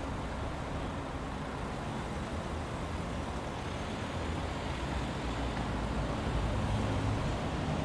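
Truck engine running with steady road-traffic noise, growing slightly louder near the end.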